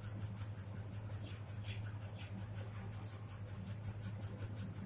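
A metal pen nib scratching across paper in quick, evenly repeated short hatching strokes, several a second, over a steady low hum.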